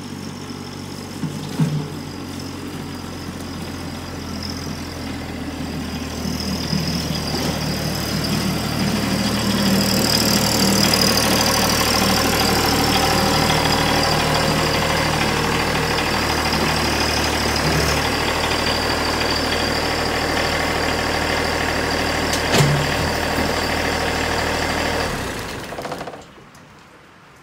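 Compact tractor engine running as the tractor is driven up and into the garage, growing louder as it comes near, then shut off about a second before the end. A clunk is heard about three-quarters of the way through.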